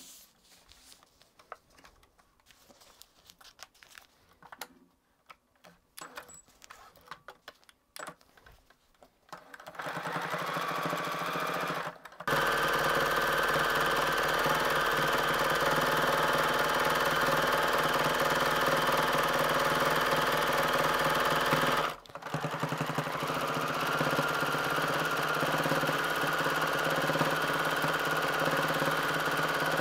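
A few faint clicks, then a sewing machine starts stitching about ten seconds in and runs steadily at speed while free-motion quilting. It stops briefly twice before running on.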